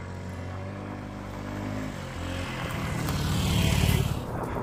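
Honda Ruckus scooter engine pulling away, revving up and getting steadily louder over the second half, then easing off near the end.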